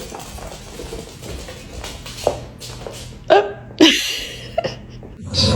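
A dog making a few short, abrupt vocal sounds about two, three and four seconds in; the middle two are the loudest.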